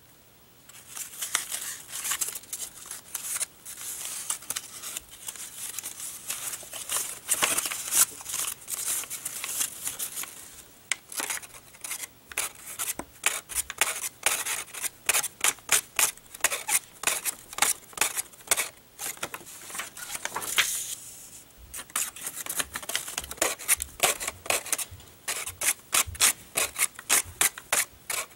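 A sheet of paper being folded, pleated and creased by hand: rapid, crisp crinkling and rustling of the paper, with two short lulls.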